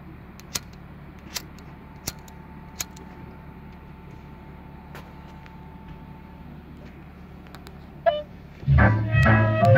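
Steady low hum with a few sharp clicks over the first few seconds, then loud music with a heavy bass line starts near the end.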